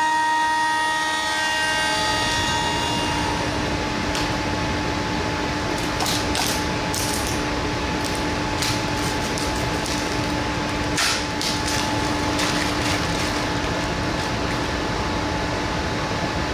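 A power tool running steadily as it cuts acrylic sheet: a continuous whirring hiss over a low hum, with scattered clicks and ticks in the middle.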